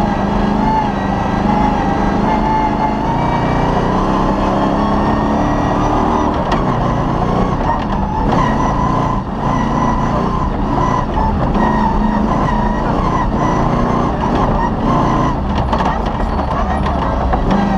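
Off-road rally car's engine running hard at speed, heard from inside the cabin, its pitch rising and falling as the driver accelerates and lifts. Short knocks and rattles come from the car driving over the rough dirt track.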